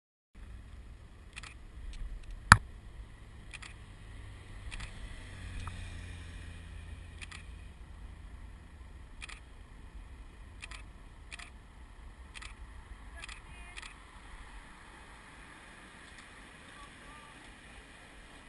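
Wind rumbling on the microphone outdoors, with a dozen or so sharp clicks at irregular intervals. One click, about two and a half seconds in, is much louder than the rest.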